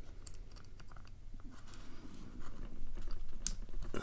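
Light metallic clicks and handling noise from a padlock being worked by hand, with a sharper click about three and a half seconds in.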